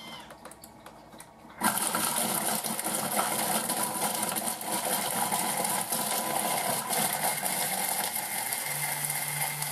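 Thermomix food processor's blade grinding chunks of stale bread into breadcrumbs: a very noisy, dense grinding that starts suddenly about two seconds in, with a low steady hum joining near the end.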